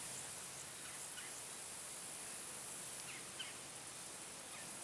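Quiet outdoor ambience: a steady faint hiss with a few short, faint bird chirps scattered through.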